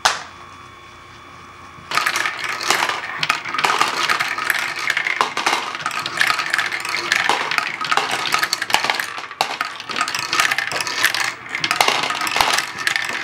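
Small plastic balls clattering and clicking against Lego bricks as a Lego Great Ball Contraption ferris wheel carries and drops them. A faint steady hum for about the first two seconds, then a dense, continuous rattle of many small clicks.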